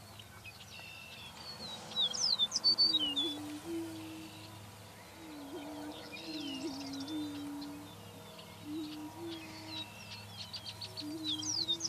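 Greater prairie chickens booming: a string of short, low hooting moans, the males' courtship call on the lek. Higher sharp chirps and quick falling whistled notes from other birds sound over them, loudest about two seconds in and again near the end.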